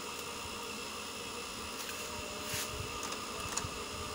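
Steady background hiss with faint high steady tones and a few small clicks. The printer itself makes no running sound.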